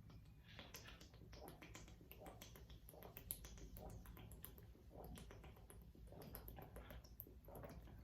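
Faint, quick, irregular clicks and soft gulps as orange soda is chugged from a bottle.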